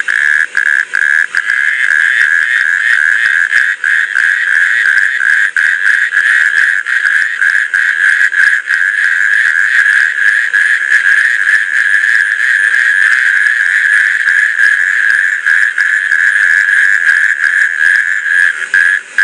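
Male natterjack toads calling in chorus: a loud, continuous, rapidly pulsed churring held at one pitch, the breeding-season advertisement call made with the throat sac inflated.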